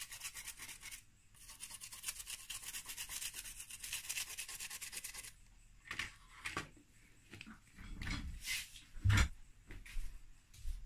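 Small brush scrubbing rapidly back and forth over a Peugeot 307 BSI circuit board wet with thinner, cleaning the soldered side. It breaks off briefly about a second in and stops after about five seconds. A few scattered handling knocks follow as the board is put down on the bench.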